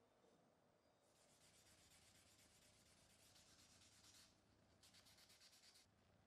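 Soapy hands scrubbing a Damascus steel knife blade in foam: a faint, scratchy rubbing in two spells, the first about three seconds long, the second about a second.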